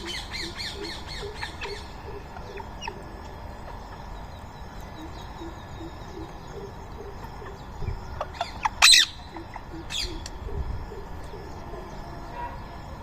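Birds calling: a fast run of shrill repeated calls fades out over the first couple of seconds, soft low notes repeat through the middle, and loud harsh squawks break out about eight to nine seconds in and again about a second later.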